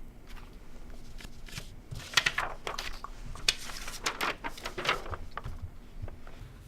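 A run of short rustling and scraping handling noises, clustered from about two to five seconds in, over a faint steady hum.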